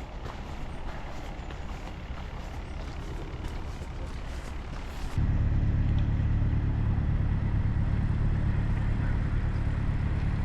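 Low, steady engine rumble with a droning hum. About five seconds in it suddenly becomes much louder and duller.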